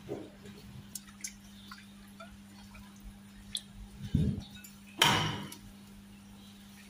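Metal spatula stirring fish in a pot of coconut-milk gravy: scattered light clicks and taps, a soft low knock about four seconds in and a louder stirring splash about a second later, over a steady low hum.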